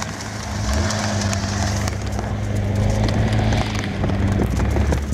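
Nissan Pathfinder SUV's engine running at steady revs under load while its wheels spin in deep snow, the vehicle bogged down.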